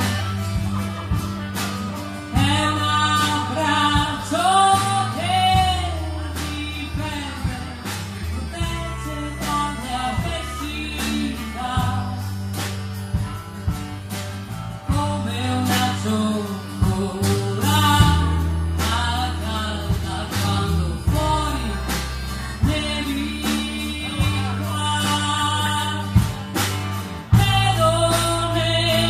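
A live band plays a song: sung vocals over acoustic guitar, electric guitar, bass guitar and drums.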